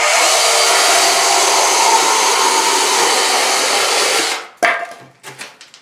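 Bosch EasyCut 12 cordless mini chain saw cutting through a Styrodur foam board: a loud, steady run of about four seconds that stops suddenly, followed by a few short knocks and scrapes.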